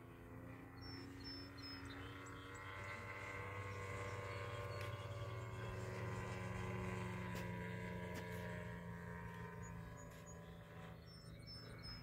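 Large radio-controlled model plane's DA-70 twin-cylinder two-stroke petrol engine, fitted with a canister muffler, droning in flight overhead. It grows louder toward the middle and fades again, its pitch shifting slightly as it passes.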